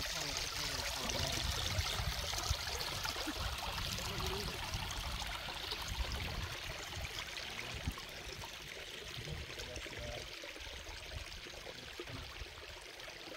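Shallow creek trickling over rocks and gravel in a steady, babbling flow. The water grows fainter in the second half.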